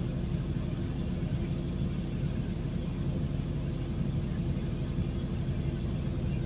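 Heavy truck's diesel engine and tyre noise, heard from inside the cab: a steady, even drone while the truck climbs a grade at about 30 mph under load.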